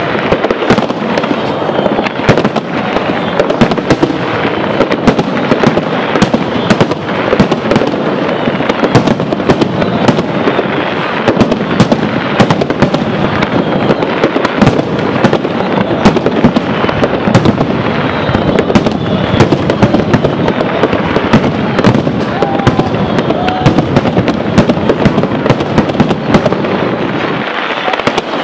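Barrage of Japanese aerial firework shells bursting in rapid succession. The bangs overlap into a continuous rumble with crackling, with no pause between them.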